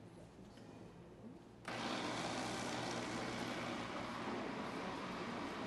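Countertop blender switched on about a second and a half in and running steadily, puréeing cooked carrot, potato, onion and ginger into soup.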